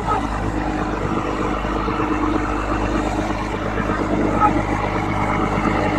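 Tanker truck's diesel engine running as the truck drives across the yard: a steady low engine rumble with a constant hum.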